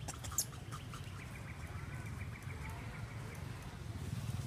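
Outdoor ambience with a low rumble, a sharp click near the start, then a rapid run of short high chirps from a small animal, about six a second for two seconds.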